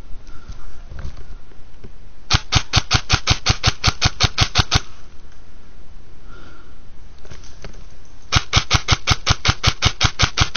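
Airsoft rifle firing on full auto: two long bursts of rapid, evenly spaced shots. The first comes about two seconds in and lasts some two and a half seconds; the second starts near the end.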